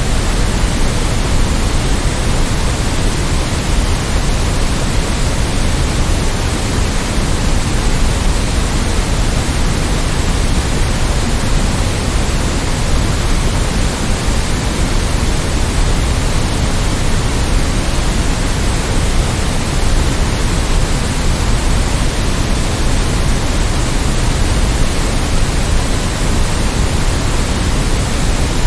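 White noise: a steady, even hiss spread across all pitches, unchanging throughout.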